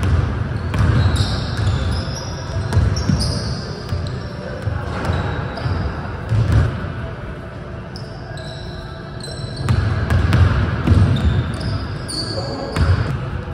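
Basketballs bouncing on a hardwood gym floor, the dribbles and thuds echoing through the large hall, with scattered short, high sneaker squeaks.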